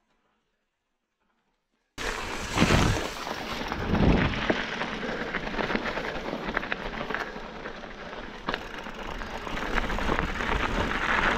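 Mountain bike riding on a frozen sandy trail: tyres rolling and crunching over the ground with many small clicks and rattles from the bike, starting suddenly about two seconds in after near silence.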